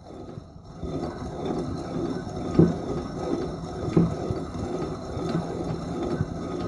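Old coffee grinder grinding beans: a continuous crunching, with louder grinding strokes about every second and a half.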